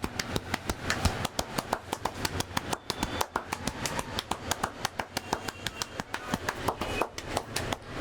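Rapid, regular percussive strikes of a barber's hands on the head and shoulders during a head massage, at about seven sharp slaps a second.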